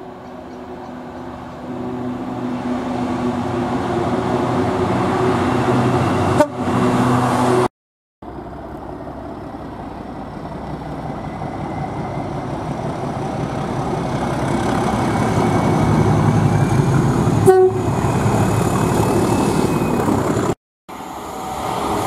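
Trains approaching through stations, the sound cutting abruptly from one to the next. First a diesel locomotive's engine runs steadily and grows louder as it nears. Then a second train's approach rises into a loud rush, with one short, loud horn blast about three-quarters of the way through.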